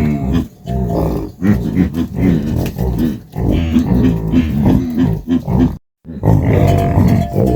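Farm animal grunting and calling in a rapid run of short, rough calls, cutting out briefly about six seconds in.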